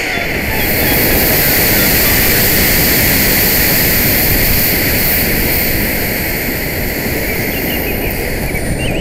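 Loud, steady rushing noise of a PVC model rocket in flight, which comes up suddenly just before and holds without a break.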